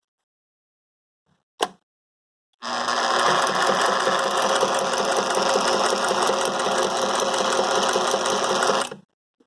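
Electric Singer 99K sewing machine stitching through about four layers of denim. A single click, then the machine runs at a steady, rapid stitch rhythm for about six seconds before stopping abruptly.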